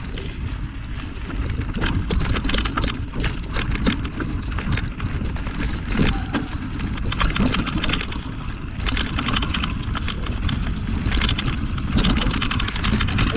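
Surly Krampus 29+ mountain bike rolling over rough, bumpy singletrack on high-pressure tyres: a constant rumble from the tyres with irregular knocks and rattles as the bike jolts over rocks.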